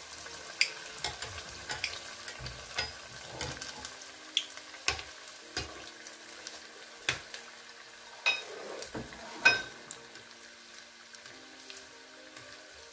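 Spring rolls deep-frying in hot oil: a steady sizzle dotted with crackling pops. A metal slotted spoon stirs and turns the rolls in the pan, adding a few sharper clicks.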